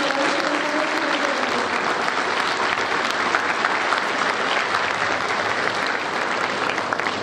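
Audience applauding: many people clapping together in a steady, dense patter.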